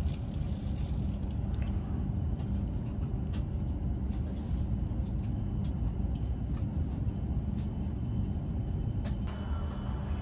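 Inside a Hokuriku Shinkansen (E7/W7 series) car as the train rolls along: a steady low rumble with scattered light clicks, and a faint high steady whine from about halfway through. Near the end the sound changes abruptly to a different cabin ambience.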